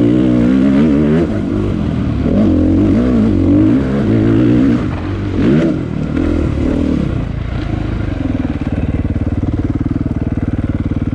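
Dirt bike engine revving up and down with the throttle while riding a dirt trail. From about eight seconds in it settles to a steady idle.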